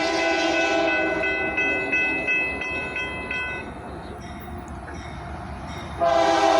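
Diesel locomotive air horn sounding a chord that fades off within the first second, then a bell dinging about three times a second for a couple of seconds over the rumble of the passing train, and the horn blowing loud again near the end.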